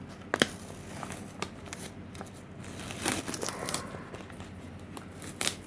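Masking tape being peeled off a thin painted Lexan car body shell, with the crinkling and crackling of the plastic as it is handled and a few sharp clicks.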